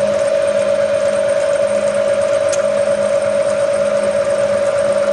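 Bridgeport variable-speed J-head vertical milling machine running, its 1.5 HP spindle drive and quill power feed giving a steady, even whine. It runs smoothly and sounds healthy.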